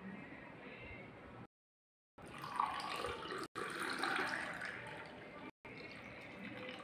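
Sweet lime juice pouring from a steel vessel into a glass: a splashing trickle of liquid, loudest in the middle of the pour. The sound cuts out briefly a few times.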